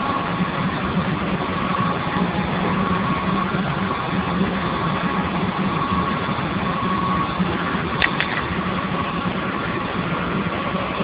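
Steam boiler running: a steady mechanical noise with a low hum and a faint high tone that comes and goes. A single sharp click about eight seconds in.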